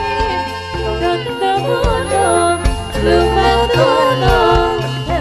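Sholawat devotional music: a wavering, ornamented melody line over sustained bass notes and drum strikes.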